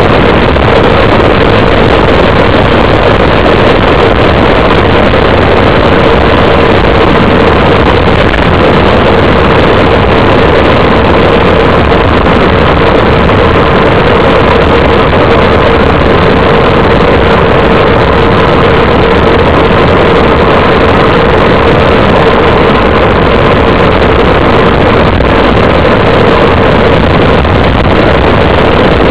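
Loud, steady wind noise on the microphone of a bicycle-borne camera on a fast downhill descent, unbroken throughout.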